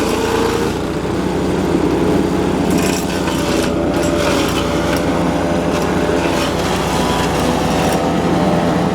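GeoTech PCS70 BS petrol garden shredder's small engine running steadily, with a few short crackles about three to five seconds in.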